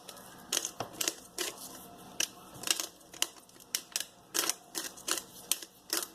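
Salt being added to the slime mixture: a run of short, gritty crunching sounds, about three a second.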